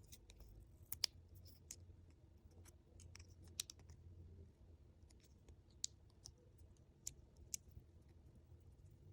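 Small plastic miniature toys being handled, giving a dozen or so sharp light clicks and taps at irregular intervals over a faint low hum.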